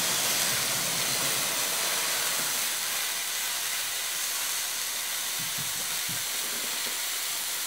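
Hot steak branding iron held pressed onto a cooked steak, hissing steadily as the meat's juices boil off against the hot metal, fading slightly as the iron cools.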